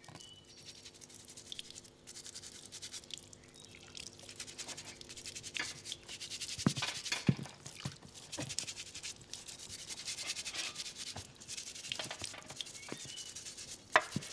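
Rapid, scratchy rubbing strokes over a low steady hum, getting louder about six seconds in, with a few sharp clicks.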